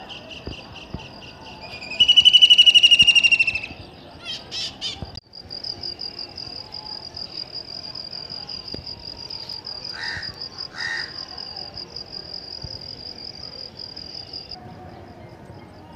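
A high, rapidly pulsing insect trill runs steadily and stops near the end. Over it are bird calls: a loud, slightly falling trilled call about two seconds in that lasts nearly two seconds, a few shorter trills just after, and two brief notes around the middle.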